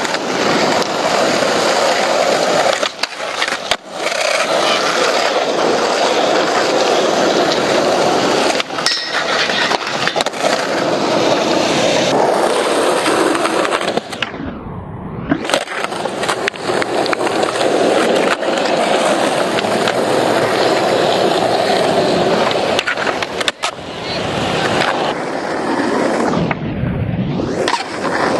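Skateboard wheels rolling on concrete and asphalt, broken several times by sharp clacks of the board popping and landing tricks. The rolling sound drops away briefly twice.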